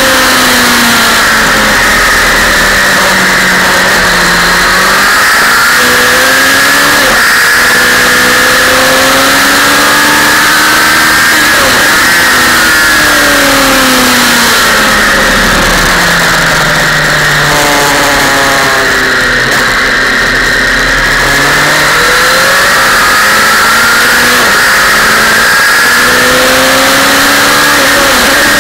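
Sport motorcycle engine at racing speed, heard from the rider's seat. The revs climb and drop repeatedly through the gears and corners, with a long fall and slow climb back near the middle, over a steady rush of wind.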